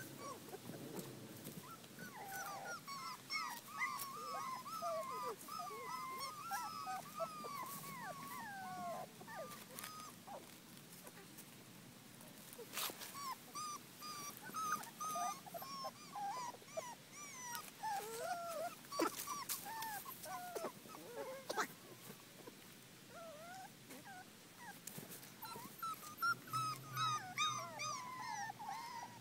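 Brittany puppies whining, many short high-pitched rising-and-falling whines overlapping one another, with a couple of brief lulls.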